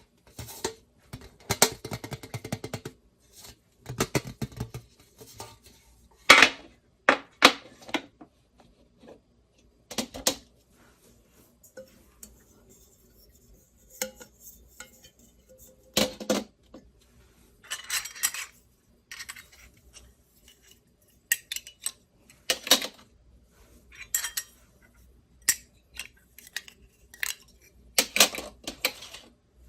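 Miniature stainless-steel toy pots, pans and utensils being handled, clinking and clattering against each other. The clinks come in irregular bursts with short quiet pauses between them.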